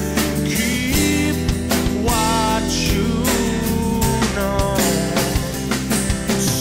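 Background music: a song with singing over guitar and a steady drum beat.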